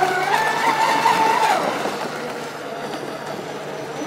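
Twin brushless electric motors of an RC catamaran speedboat running at high speed with a high whine, which falls in pitch and fades about a second and a half in, then picks up again near the end.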